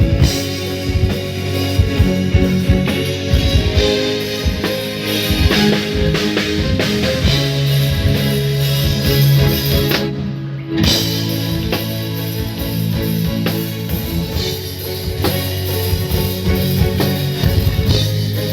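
Live rock band playing: drum kit and guitar over a steady bass line, with the cymbals and drums dropping out for a moment about ten seconds in before the groove comes back.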